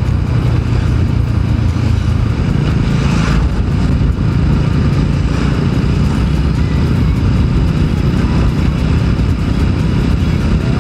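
TVS Apache RTR 200 4V's single-cylinder engine running steadily under way at cruising speed, with a brief louder rush of noise about three seconds in.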